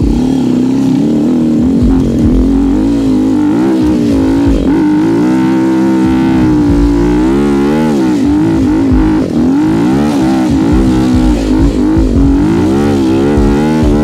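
Sharmax RX300 enduro motorcycle engine running under load in second gear, its revs rising and falling over and over as the throttle is worked.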